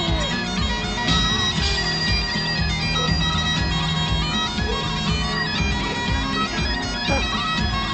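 Bagpipe music played over a loudspeaker: steady drones under a melody of held notes.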